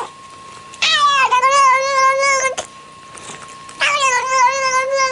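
A cat giving two long, drawn-out meows, each well over a second long, with a wavering pitch. The second starts about a second after the first ends.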